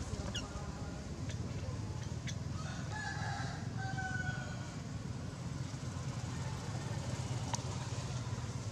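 A drawn-out two-part animal call about three seconds in, over a steady low hum, with a few sharp clicks.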